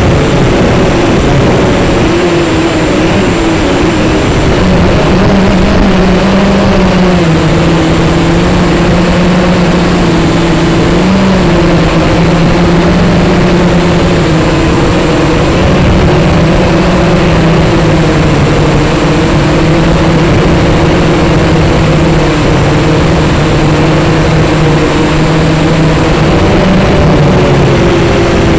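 Small drone's electric motors and propellers humming steadily over a broad rushing hiss, loud at close range. The pitch steps up slightly a few seconds in and wavers as it flies.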